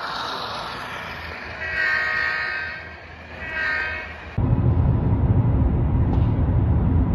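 Model diesel locomotive's electronic sound system blowing its horn twice over the soft running of the model train, a longer blast then a short one. About four seconds in, a sudden switch to a loud, steady low rumble of car and road noise.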